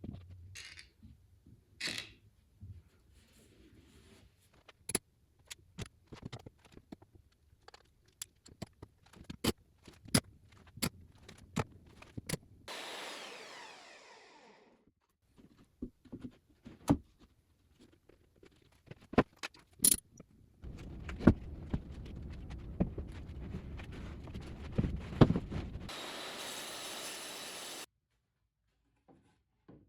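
Workshop sounds of tools and wood being handled: a long run of separate sharp clicks and knocks, with a short falling sweep about halfway through. In the last third comes a stretch of steady running noise, hissier near its end, that cuts off suddenly.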